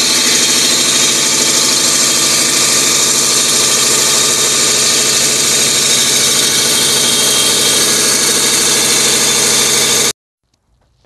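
Lapidary rock saw running steadily as its blade cuts through a thunderegg clamped in the saw's vise. The loud, even sound cuts off suddenly near the end.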